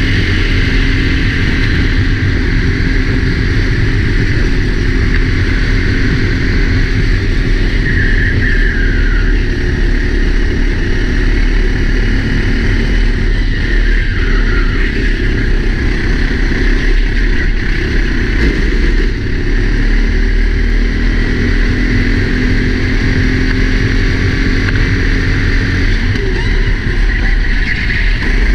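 A four-stroke Sodi racing kart's engine running hard, picked up by a helmet camera, its pitch rising and falling as the kart is driven around the track. A heavy low rumble lies under it.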